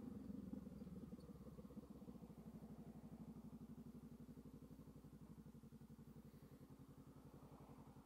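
Honda Rebel 500's parallel-twin engine idling faintly with a steady pulsing beat, settling from a slightly higher, wavering note in the first second or so.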